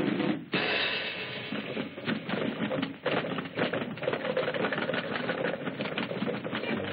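Cartoon sound effects: a sudden whoosh about half a second in, then a rapid, dense clattering rattle.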